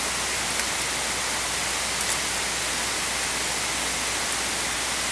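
Steady hiss of the recording's background noise in a hall, with a few faint clicks about half a second, two seconds and four seconds in.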